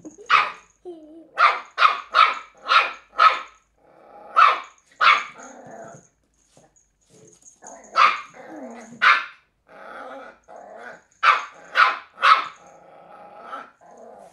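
Cairn terrier puppy barking in short, sharp barks that come in runs of two to five, with low growling between the runs.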